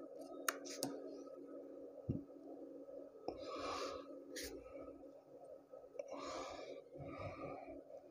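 Small 12-volt DC fan of a homemade hot air gun running steadily with a faint, even hum as it blows air past the heating coil. A few light clicks come near the start, and two short hissing rushes of air come about a third of the way in and again past the middle.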